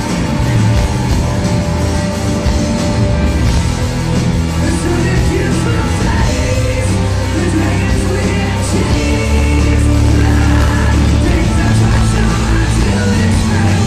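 Rock band playing live and loud: distorted electric guitars, bass guitar and a drum kit.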